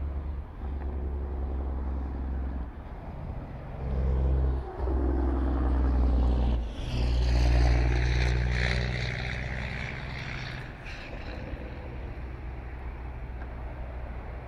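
Diesel switching locomotives (EMD GP15-1s, twelve-cylinder 645 engines) running at a distance as a steady low drone. The drone swells louder about four seconds in and again around the middle. A higher hiss joins for a few seconds in the middle before it settles back to a steady run.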